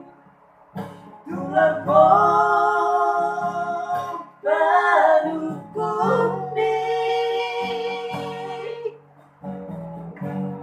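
A voice singing a Batak song in a high key to strummed acoustic guitar. The long phrases end in held notes, with short breaths between them near the start and about nine seconds in.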